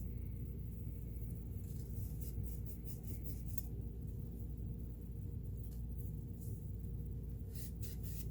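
Light scratchy rubbing on a sewing machine part as it is cleaned, in two short spells, the first about two seconds in and the second near the end, over a steady low hum.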